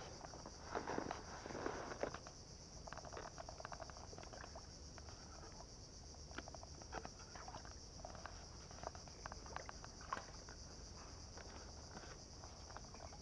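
Steady high insect drone from the mangroves, with faint irregular clicks and small splashes as a hooked fish is reeled in close to the bank on a baitcasting reel.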